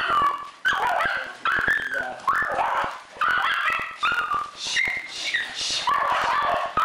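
Pet dogs whining and yelping in excited greeting: a string of short, high-pitched cries, many sliding in pitch, about one or two a second, with sharp clicks between them.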